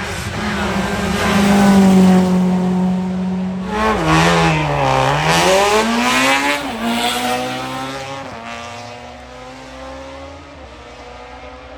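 VW Polo hillclimb race car's engine at high revs as it comes past. The revs drop sharply about four seconds in, climb again, and step down again with a gear change a few seconds later. The engine sound then fades as the car moves away.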